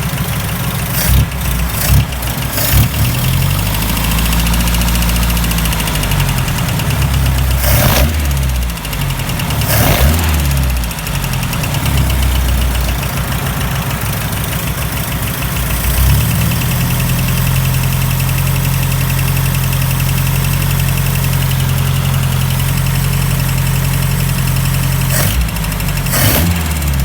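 Opel CIH engine running, its speed changing for the first half and then holding a steady idle, with a few brief sharp noises along the way. It has a knock that the owner questions as possible rod knock.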